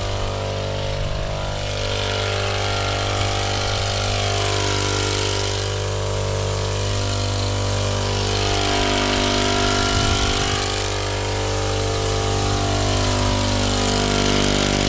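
Small petrol engine of a motorized pesticide sprayer running steadily at a constant speed.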